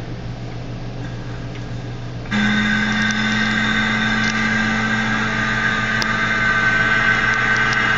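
A steady drone of several held tones starts suddenly a little over two seconds in and carries on unchanged, over a low background hum.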